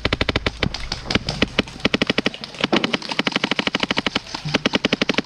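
Airsoft guns firing on full auto: long strings of rapid, evenly spaced shots with brief gaps between bursts.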